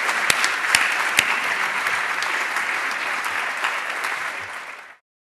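Audience applauding, a dense run of hand claps that eases off slightly and then cuts off abruptly near the end.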